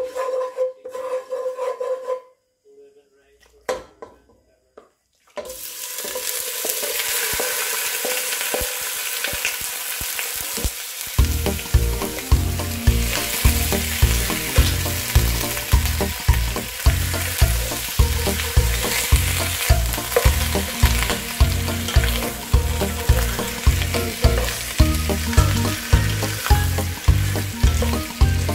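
Raw chicken wings sizzling as they fry in hot oil in a nonstick pot, the sizzle starting suddenly about five seconds in. From about eleven seconds a wooden spatula stirs them, adding a regular beat about twice a second over the steady sizzle.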